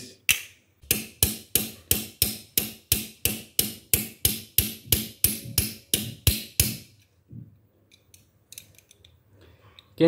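Hammer tapping a metal drawer lock in a steady run of sharp blows, about three a second, stopping near seven seconds in. The blows drive the lock's stuck bolt back into the lock body.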